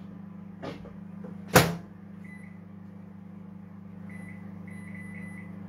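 Microwave oven door shut with a sharp clunk about a second and a half in. It is followed by a series of short electronic beeps as the time is keyed in on the control panel.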